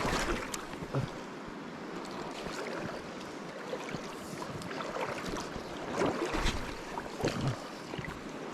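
Legs wading through shallow river water, with irregular sloshing splashes over the steady rush of the river.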